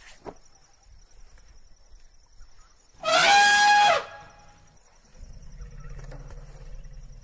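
An animal gives one loud call about three seconds in, lasting about a second on a steady high pitch that drops at the end. A fainter low rumble follows about two seconds later.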